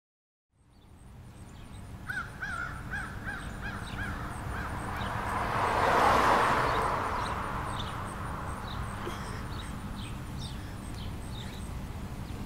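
Outdoor street ambience fades in from silence: a crow gives a quick run of about six caws about two seconds in, and small birds chirp throughout. A broad rushing noise swells up, peaks midway and dies away again.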